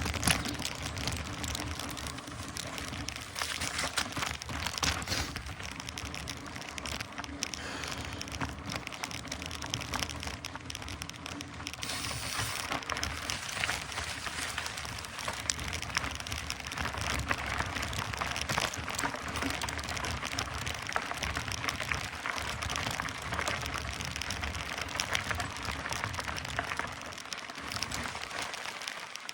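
Mountain bike rolling along a wet, muddy trail: steady tyre noise full of small crackles and ticks.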